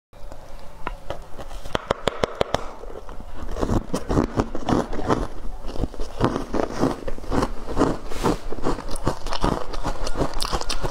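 A block of ice coated in matcha powder being bitten and chewed: many sharp crunches and cracks of breaking ice at an uneven pace.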